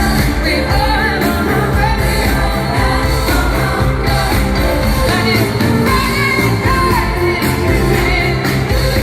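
Live pop-rock band playing with a woman singing lead over a steady beat.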